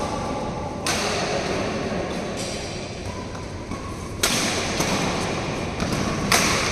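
Badminton rackets striking the shuttlecock during a doubles rally: three sharp hits, about a second in, past the middle and near the end, each ringing on in the echoing hall.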